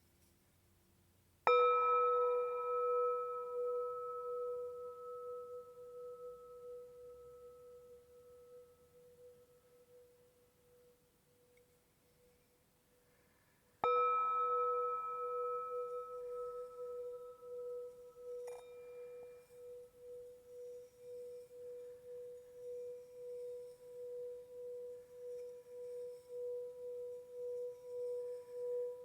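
Quartz crystal singing bowl struck twice, each time ringing out as a pure, sustained tone with high overtones. The first strike fades away over about ten seconds. After the second strike the tone keeps sounding with a steady wavering pulse and swells toward the end, with a light tap partway through.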